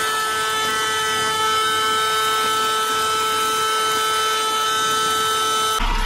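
Shinexpro wired handheld car vacuum cleaner running with a steady high motor whine as its crevice nozzle sucks debris off a car dashboard. Just before the end the sound turns abruptly rougher and noisier, with a low hum underneath.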